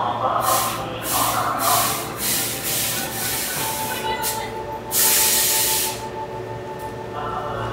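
Hankyu electric train at the platform letting off compressed air: a quick series of short hisses, then a longer, louder hiss about five seconds in. A steady humming tone sets in about halfway through.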